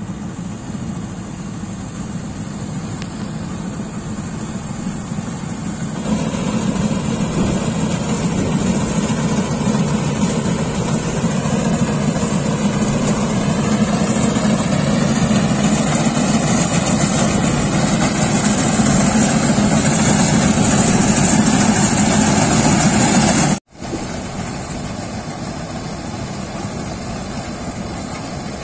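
Mahindra combine harvester's diesel engine and machinery running steadily while it harvests rice. The sound gets louder about six seconds in, breaks off for an instant near the end, and then carries on quieter.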